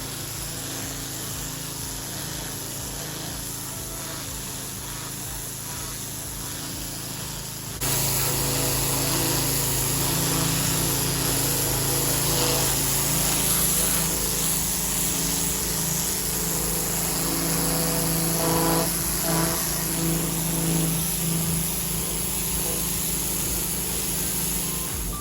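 Pressure washer running steadily, a low motor hum under a hiss of water spray; it gets suddenly louder about eight seconds in.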